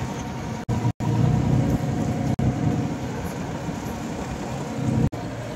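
Fishing boat's engine running with a steady drone, cut off abruptly for an instant a few times where the footage is edited.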